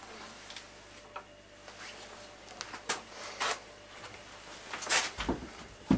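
A few scattered light knocks and rustles, as of things being handled and set down on a workbench, with faint room hum between them.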